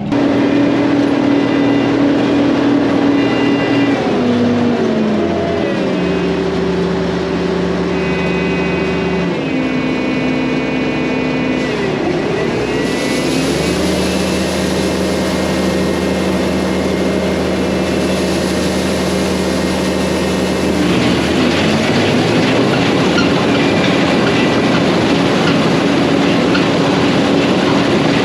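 Vehicle engine running under load, its pitch dropping and rising several times as it slows and speeds up. A rushing noise grows louder over the last several seconds.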